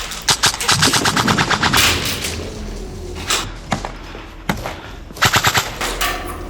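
Airsoft rifles firing on full auto: a rapid burst of about a second and a half, a few single shots, then a short burst near the end.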